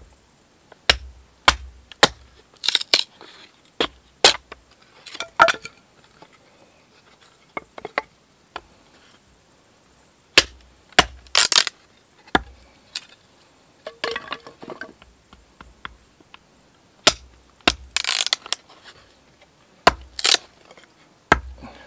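Small hand-forged hatchet, its blade set in the end of a stick of kindling, knocked down again and again with the stick onto a wooden chopping block to split it into thin strips. The sound is repeated sharp knocks with pauses between them, and a few knocks are followed by a short crackle of the wood splitting.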